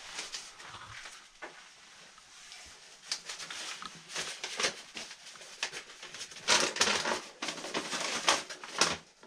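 A folded sheet of paper rustling and crackling as gloved hands handle and unfold it, busiest and loudest in the second half.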